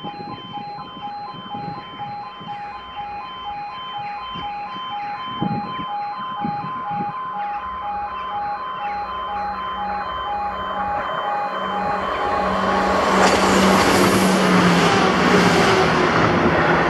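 Level crossing alarm sounding in an even, pulsing pattern of tones. A ScotRail diesel passenger train approaches under it, its noise growing steadily louder and peaking as it passes close by near the end.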